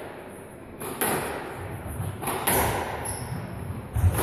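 Squash rally: racket strikes and the ball thudding off the court walls, about one shot every second or so, with the heaviest thud about four seconds in.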